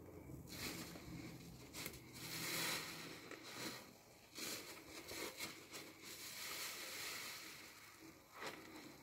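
A new car sponge squeezed and kneaded in thick soapy foam: wet squelching and the crackle of suds. It comes in several swells, the loudest a couple of seconds in.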